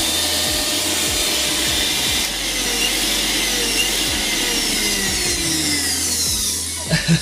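Prestige mixer grinder's brushed motor starting up after its overload reset button is pressed and running at speed with a loud whir and whine, the whine sinking a little in pitch in the second half; it cuts off near the end.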